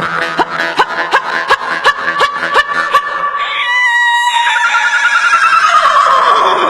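Vocal sound effects made with the mouth: a run of quick pops, about three a second, each with a short upward sweep, then a held tone and a long downward-gliding tone near the end.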